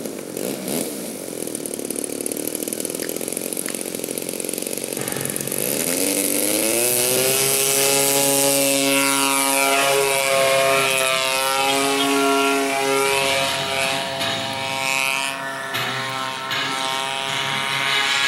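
Radio-controlled aerobatic model airplane's engine throttling up for takeoff: lower and rougher for the first few seconds, then climbing steeply in pitch and getting louder about five or six seconds in. It then runs at high revs, the pitch sweeping up and down as the plane flies past.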